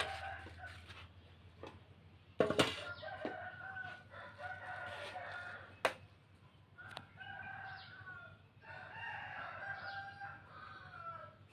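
Rooster crowing again and again, each crow a drawn-out pitched call, with a couple of sharp knocks, the loudest about two and a half seconds in.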